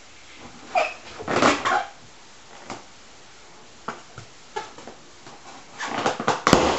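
A baby handling a rubber balloon against a wooden chest: a string of irregular soft knocks and rubbing scrapes, bunching together near the end.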